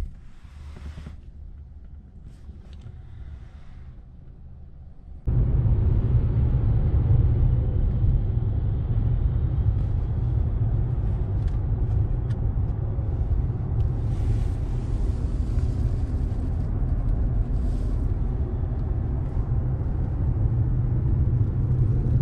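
Steady low road and engine rumble inside a moving car's cabin. It is quieter for about the first five seconds, then jumps suddenly louder and holds steady.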